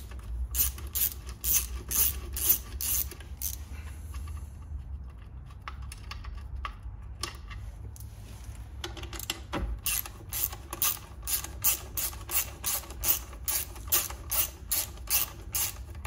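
Hand ratchet clicking in quick, even strokes as it undoes the bolt of a scooter's exhaust holder bracket, about three clicks a second. It stops for a few seconds around the middle, then starts again and runs on.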